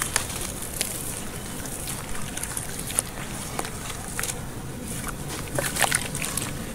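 Hands crumbling a dry sand-and-cement chunk into a basin of muddy water, with scattered gritty crackles and small splashes, then squelching and sloshing through the wet mud, with a few louder crackles near the end.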